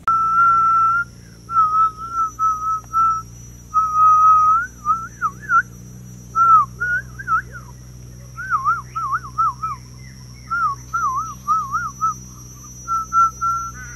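A person whistling by mouth. The whistle starts with a few held notes and short steady notes, then from about five seconds in turns into quick warbling runs that wobble up and down in pitch.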